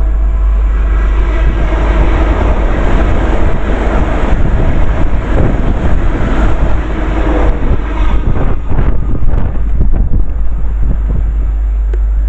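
A train passing through at speed, its rumble and rail noise building over the first few seconds and easing off after about eight seconds. Heavy wind noise on the microphone runs underneath.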